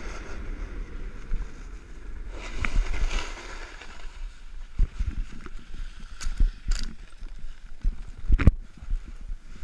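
Snowboard sliding over packed snow with wind rushing on the microphone, easing off about four seconds in as the board comes to a stop. After that come scattered clicks and knocks from the board and gear, with one loud thump near the end.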